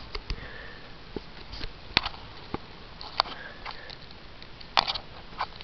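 Lhasa Apso dog sniffing in short, scattered bursts, mixed with small clicks and taps.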